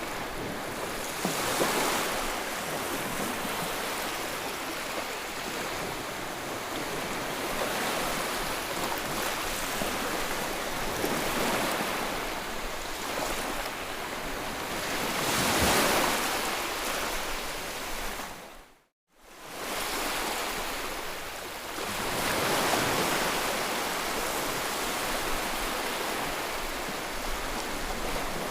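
A white-noise track of continuous rushing, surf-like noise that swells and eases every few seconds. About 19 seconds in it fades out to silence for a moment and straight back in, like the loop point of the track.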